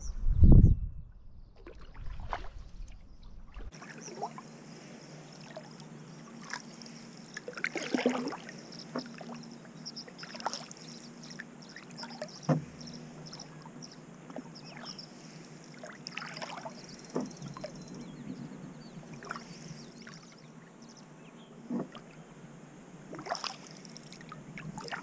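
Wooden canoe paddle strokes in calm water alongside a 1985 Old Town Discovery 174 canoe: the blade dips and pulls every two to three seconds with soft splashing and dripping. There is a low rumble on the microphone about half a second in and a single sharp knock about twelve seconds in.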